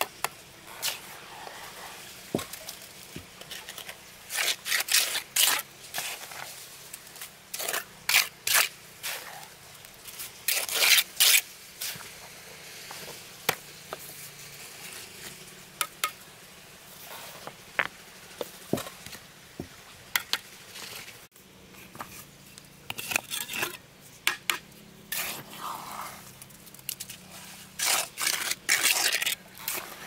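A steel trowel scraping wet cement mortar and stones being set against stone: irregular clusters of short gritty scrapes and clacks with pauses between them.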